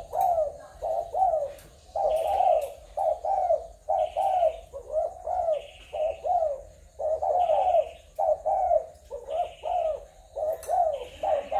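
Spotted doves cooing: short coo phrases repeated one after another with brief gaps, about one a second.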